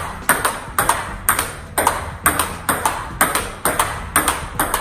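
Table tennis backhand short rally: the celluloid-type plastic ball clicking sharply off the racket and bouncing on the table in a steady rhythm, about two strokes a second.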